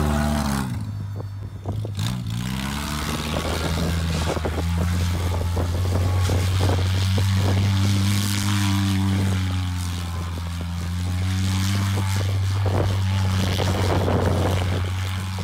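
Mini monster truck engine running at high revs as the truck spins donuts in snow. The revs drop about a second in, climb again, then hold steady.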